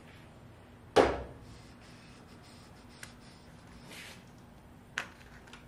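A sharp knock about a second in, then a couple of lighter clicks and a soft rustle: small engine parts and tools being handled on a workbench during disassembly.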